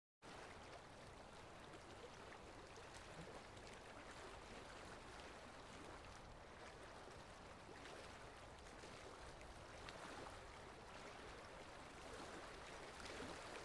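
Faint beach ambience of sea waves washing on the shore, a steady wash of water that comes in suddenly just after the start.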